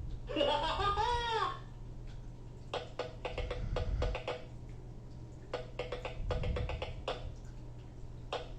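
Fisher-Price Code 'N Learn Kinderbot toy robot playing its built-in sound effects through its small speaker: a brief warbling electronic chirp that rises and falls in pitch, then a rhythmic run of clicks like wood-block percussion, over a steady low hum.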